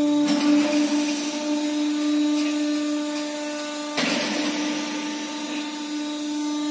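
Gas-cylinder homogenizer running: a steady electric motor hum, with a louder rushing mechanical surge twice, about four seconds apart, as the rack of cylinders tilts.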